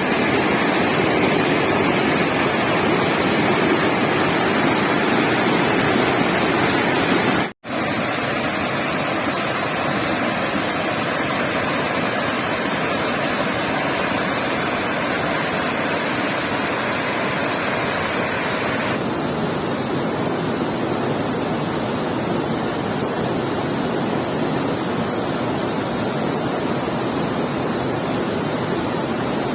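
Waterfall: a steady rush of falling water, broken by a moment's silence about seven and a half seconds in.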